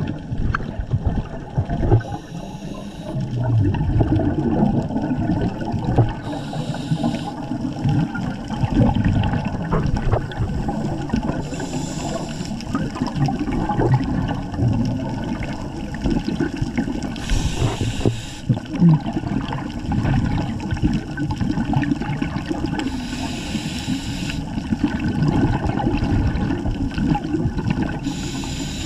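Scuba diver breathing through a regulator, heard underwater: exhaled bubbles gurgling and bubbling throughout, with the hiss of an inhalation through the regulator about every five to six seconds, five times.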